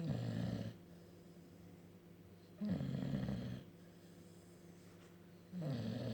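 Bulldog snoring in its sleep: three rattling snores, each about a second long, coming about every three seconds.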